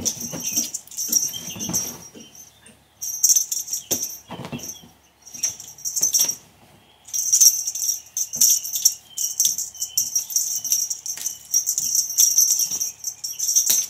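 Battery-powered cat toy moving under a bedsheet, running in irregular bursts of high whirring and rattling with short pauses between, the sheet rustling as cats pounce at it.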